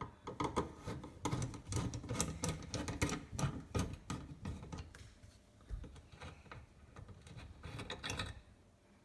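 Sink drain fittings under a kitchen sink being handled and loosened: a dense, irregular run of clicks, knocks and rattles that thins out after about five seconds, with a short cluster of clicks near the end.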